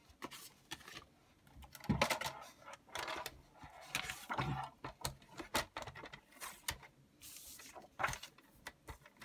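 Paper handling on a craft desk: a sheet of patterned paper rustling and sliding, with light plastic knocks and scrapes as a paper trimmer is moved into place. The sounds come as a string of short scrapes and taps, the loudest about two and four seconds in, with a longer sliding scrape a little past seven seconds.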